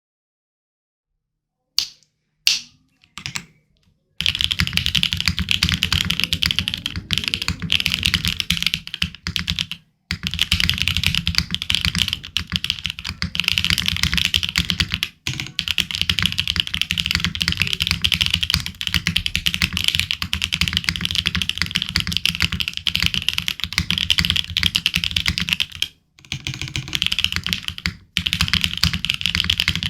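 Mode Sonnet mechanical keyboard with lubed switches on a POM plate, typed on fast: a few single keystrokes, then a dense run of key clacks broken by a few short pauses. The overall sound is a little plasticky.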